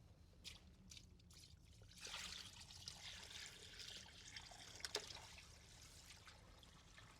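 Faint trickle of dirty water poured from a bucket into a drain, starting about two seconds in, with a few light knocks.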